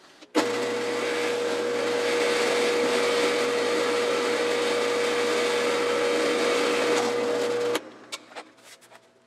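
Drill press running and boring a hole through plywood: a steady motor whine with a low hum under the noise of the cut, which stops abruptly near the end. A few faint taps follow.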